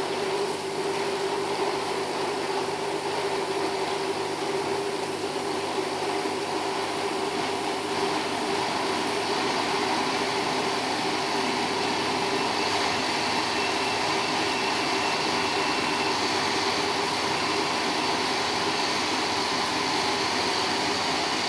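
Electric countertop blender motor running steadily at full speed, blending a liquid chili, garlic and lime dipping sauce.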